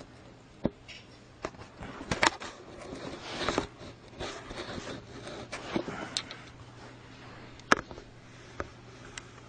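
Scattered clicks, knocks and short scrapes, as of small hard objects being handled, the sharpest knock about seven and three-quarter seconds in.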